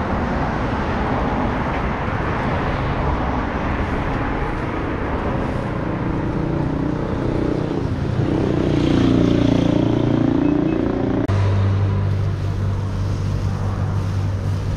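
Street traffic noise, with a vehicle passing about two-thirds of the way through. A steady low hum cuts in suddenly near the end.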